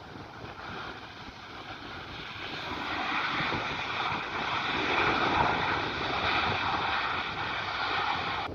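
Boeing 737 MAX 8's CFM LEAP-1B jet engines passing close on landing. The rush grows louder over about three seconds and then holds, with a steady whine over it. There is wind noise on the microphone.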